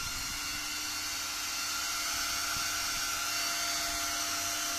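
Dual 12 V high-speed cooling fan on a laser diode module's heatsink running at full speed: a loud, steady high-pitched whine over a strong rush of air.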